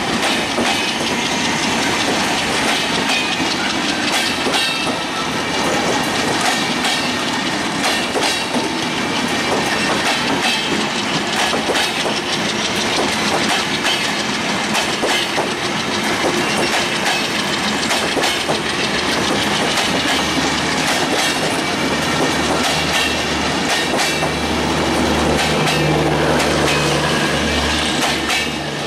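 Passenger coaches of a Bangladesh Railway intercity express rolling past close by, a steady rumble and hiss with the wheels clattering over rail joints. In the last several seconds a low steady hum builds as the power car, with its generator, comes past.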